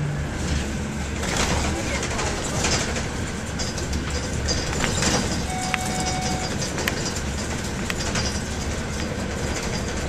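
Inside a moving bus: the steady low rumble of the engine and road noise through the cabin, with a few sharp clicks and rattles about six to eight seconds in.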